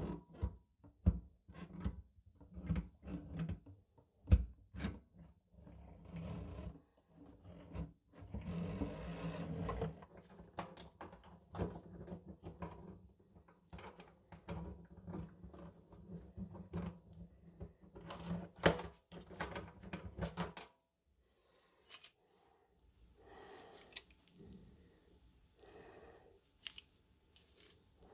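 Metal-on-metal handling of a mixer tap and its braided steel supply hoses being pulled up through a stainless steel sink deck: irregular clicks, knocks and scraping rubs. A low background hum stops about two-thirds of the way through, and the handling noises grow sparser after it.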